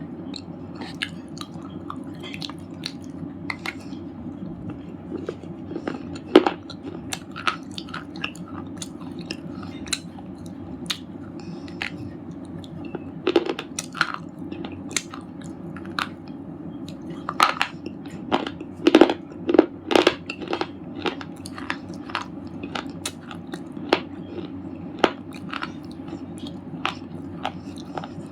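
Red slate chips crunching: a long irregular run of sharp, crisp cracks, thickest and loudest in a flurry about two thirds of the way through, over a steady low hum.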